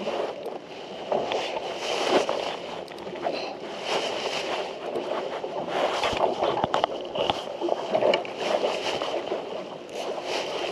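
Water sloshing and gurgling around a small fishing boat, with scattered irregular knocks and handling noise.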